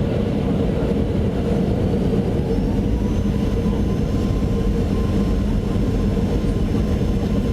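Aeroplane engines running with a steady, dense low rumble; about a third of the way in, a faint whine starts and slowly rises in pitch.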